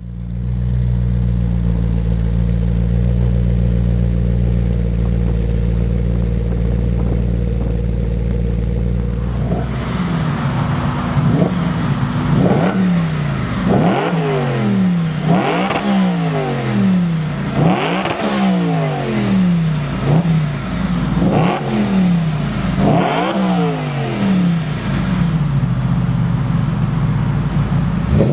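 Audi RS4 B8's 4.2-litre V8 through an Akrapovič exhaust, parked and free-revving. It idles steadily for about ten seconds, then the throttle is blipped about nine times, each rev rising sharply and falling back toward idle.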